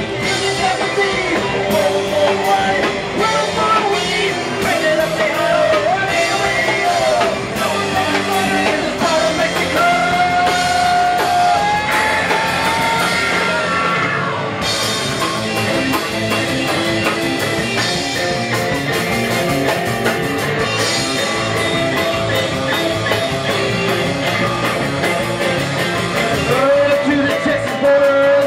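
Live rock band playing: electric guitar and drum kit with a singer's voice over them, continuously loud.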